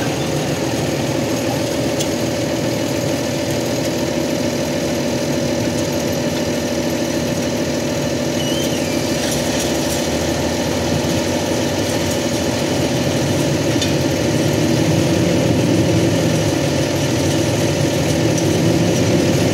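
John Deere 6630 tractor's six-cylinder diesel engine running steadily under load while pulling a Väderstad Rapid 300 seed drill.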